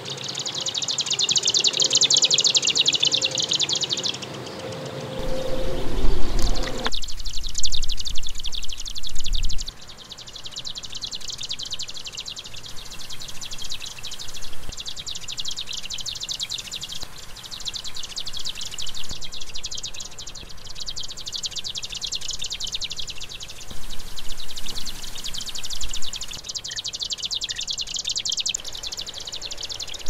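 Marsh grassbird (Japanese swamp warbler) singing in its song flight: a high, rapid chattering series of notes repeated phrase after phrase with short gaps. A louder low rumble comes from about five to ten seconds in.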